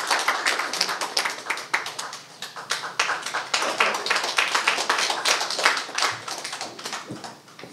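Audience clapping in applause, a dense patter of many hands that thins out and stops near the end.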